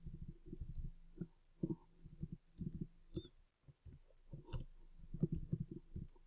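Computer keyboard being typed on: quick runs of muffled key strokes with short pauses between words.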